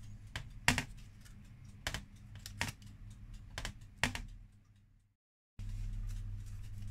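Hands crimping the edge of puff pastry on a parchment-lined metal baking tray: light, irregular taps and clicks about once a second as the fingers press and fold the dough, over a steady low hum. The sound cuts out briefly about five seconds in, after which only the hum remains.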